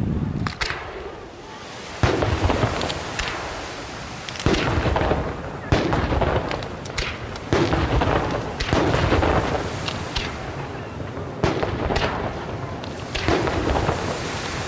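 Aerial firework shells bursting in a string of sharp bangs, roughly one every one to two seconds, each followed by a fading echo.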